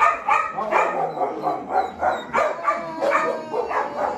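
Puppies barking and yipping in a rapid, unbroken run of short, high barks, about two or three a second.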